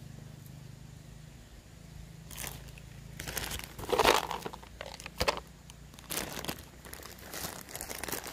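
Irregular crinkling and crunching handled close to the microphone, starting about two seconds in and loudest about four seconds in.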